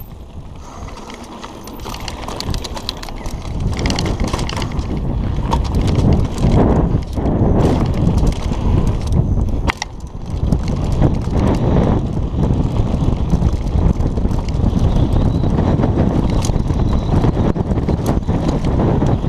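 Mountain bike riding fast down a loose dirt trail: wind buffeting the camera's microphone, with the tyres crunching and the bike rattling over rough ground. It builds up over the first few seconds as the bike gathers speed.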